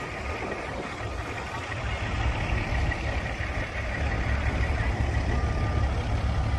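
A vehicle engine running steadily with a low, pulsing rumble.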